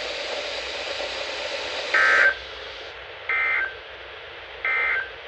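Three short bursts of NOAA Weather Radio SAME data tones, a buzzy warble about 1.3 seconds apart, over steady radio hiss. Coming right after the warning text ends, they are the end-of-message code closing the alert.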